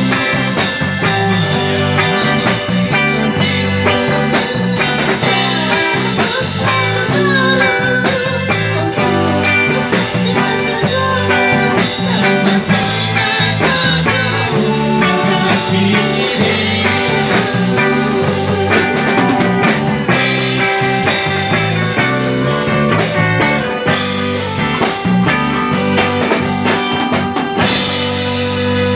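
Live band music with guitar and drums playing steadily, and a woman singing into a microphone.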